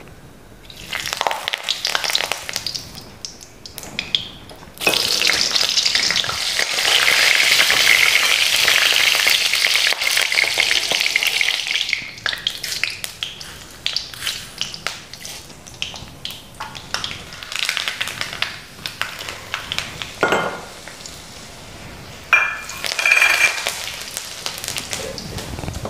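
Mustard seeds frying and spluttering in hot oil in an aluminium wok, loudest for several seconds near the middle, with scattered pops afterwards. Near the end dried red chillies, green chillies and curry leaves are in the oil and sizzle in a fresh loud burst.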